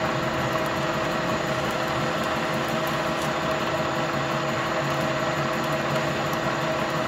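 Okuma engine lathe running and turning a metal shaft under a cut: a steady mechanical hum with several steady tones over an even noise.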